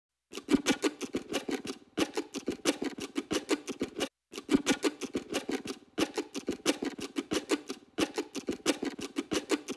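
Fast, even ticking in a steady rhythm, in runs of about two seconds with brief breaks between them.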